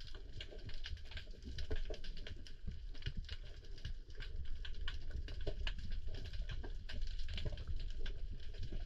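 Underwater reef ambience: a continuous, irregular crackle of small clicks over a steady low rumble of moving water.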